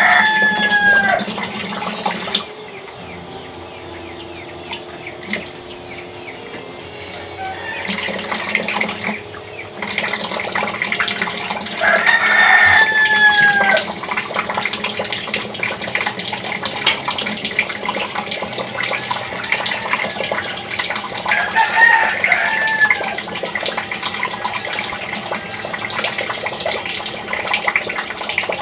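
A rooster crowing three times, roughly ten seconds apart, each call falling in pitch at its end. Under it, water runs from a tap and splashes as hands are washed, most steadily in the second half.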